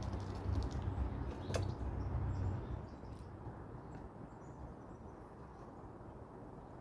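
Wind buffeting the microphone in a low rumble that eases off about three seconds in. A single sharp click comes about a second and a half in.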